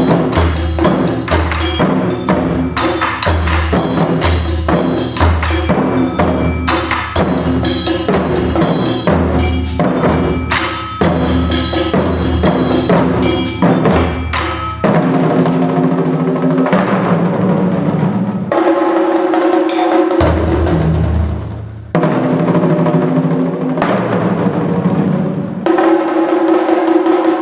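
Modern-style taiko drum music with no shouted calls: quick, evenly spaced drum strikes over pitched accompaniment, giving way about halfway through to long held chords with deep bass notes.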